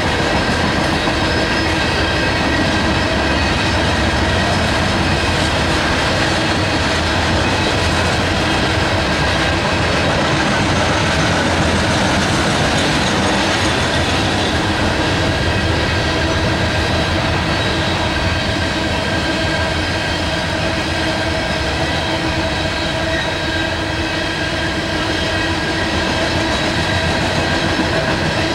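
Loaded coal hopper cars rolling past on the rails: a steady, unbroken rumble and clatter of steel wheels on track, with steady ringing tones over it.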